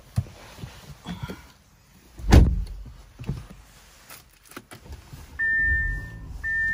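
Inside an Audi sedan, a car door shuts with a heavy thud about two seconds in, among small handling clicks. A few seconds later a steady low hum sets in as the car powers up, with a steady high electronic warning tone that breaks off briefly and resumes.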